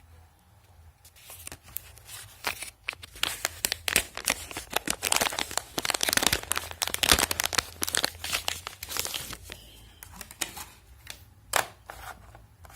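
Packaging of a Xiaomi Mi WiFi Repeater 2 being torn and crinkled open by hand: irregular crackling and tearing with many small clicks, busiest in the middle of the stretch.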